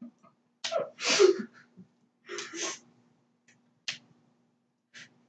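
A person's sharp breathy outbursts through mouth and nose: a loud one about a second in and a weaker one past two seconds, then a couple of short clicks.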